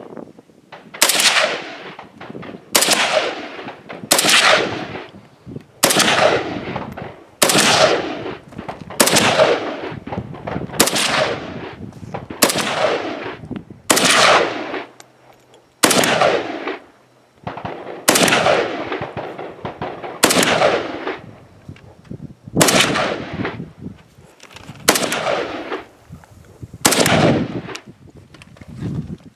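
AK-pattern rifle firing single shots at a slow, steady pace, about fifteen in all, one every one and a half to two seconds, each trailing off in a long echo. The rifle is feeding and cycling every round from a cheap Promag magazine under test.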